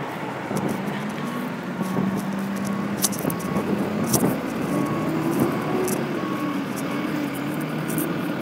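A vehicle engine running steadily, its pitch wavering in the second half, with a faint short beep repeating about once a second and a few sharp clicks.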